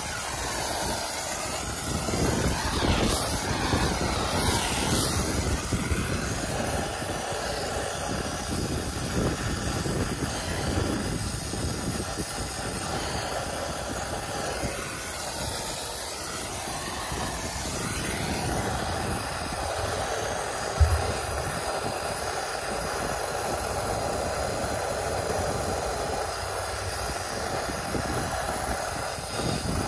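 Brazing torch flame hissing steadily while it heats a copper refrigerant line joint on a heat pump's reversing valve, with one short knock about two-thirds of the way through.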